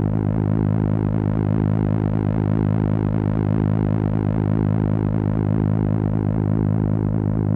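Live-coded electronic music: a steady, dense synthesized drone of many stacked tones, with a fast, even wavering flutter in its upper tones and no beat or breaks.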